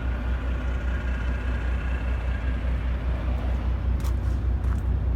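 Semi truck's diesel engine running steadily: a deep, even rumble with a regular pulse. A few faint clicks about four seconds in.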